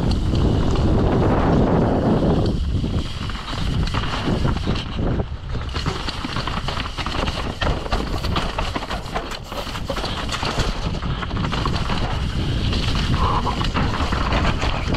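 Mountain bike ridden fast downhill: wind buffeting the microphone, heaviest in the first couple of seconds, over tyre noise on dirt and a steady clatter of the bike's chain and frame rattling over bumps and rocks.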